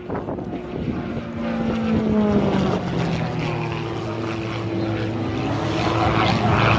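Extra 330L aerobatic plane's six-cylinder engine and propeller droning overhead as it climbs, its pitch dropping about two seconds in and then holding steady.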